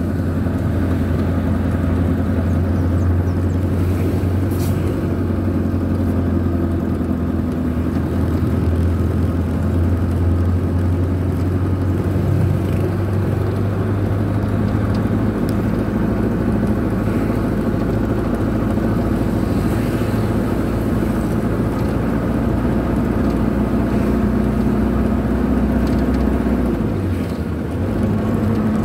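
Vehicle engine running steadily while driving, heard from inside the cab as a continuous low drone. Its low note shifts about twelve seconds in, and there is a short dip in level near the end.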